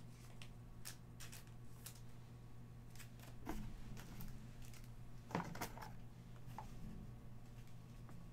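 Faint, scattered clicks and light rustling of trading cards and their packaging being handled, with a couple of sharper ticks midway, over a steady low hum.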